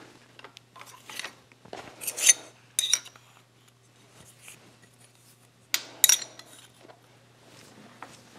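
Steel tooling and a small steel part clinking against the cast-iron milling-machine vise and drill chuck as they are handled, with a few sharp clanks, the loudest about two seconds and six seconds in, over a faint low steady hum.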